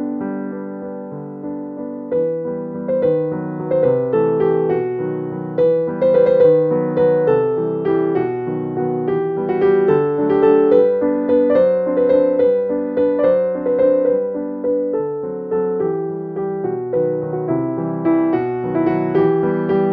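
Background piano music: a continuous melody of struck notes, each starting sharply and fading.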